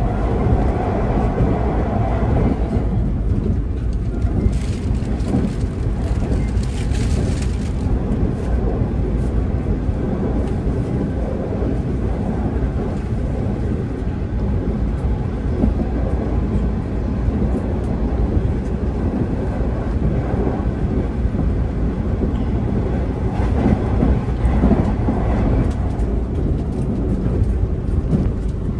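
Steady low running rumble of a JR 381 series limited express train heard from inside a passenger car, with a brief higher hiss about five to seven seconds in.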